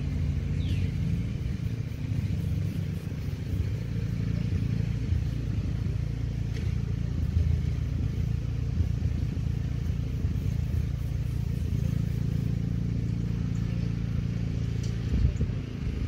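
Steady low motor hum, like an engine running nearby, with a brief high falling chirp about a second in and a dull thump near the end.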